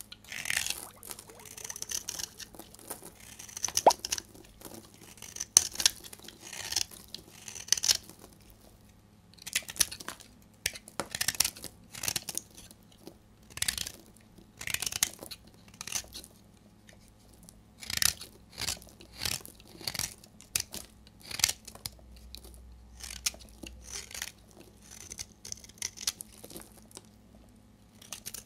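Utility knife blade shaving and scraping a bar of dried-out soap: a series of short, crisp, crunchy strokes, about one a second.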